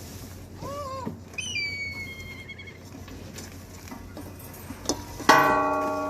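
A sharp strike about five seconds in that rings on with several steady tones, like struck metal or a bell, the loudest thing here. Earlier, about a second in, come two short pitched squeals, one falling then held, over a steady low hum.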